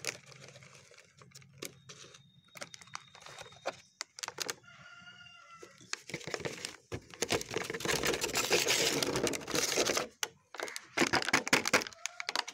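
Granular fertilizer mix poured from a bag into a clay flower pot, a long rustling hiss for about three seconds, followed by scattered clicks and crackles of the bag. A rooster crows once, about five seconds in.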